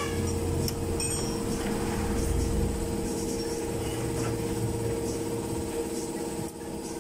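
Steady machine hum that drops off near the end. A few light metal clinks about a second in come from a scooter's front wheel axle being worked by hand.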